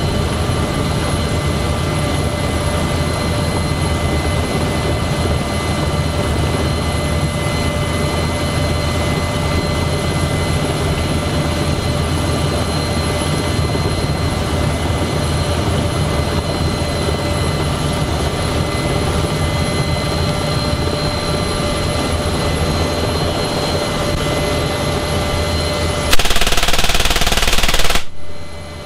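NH90 helicopter cabin noise with the door open: a steady drone with several steady whines from the turbines and rotor. About two seconds before the end comes a burst of roughly two seconds from the door-mounted M3M 12.7×99 mm heavy machine gun. The burst is the loudest sound and stops sharply.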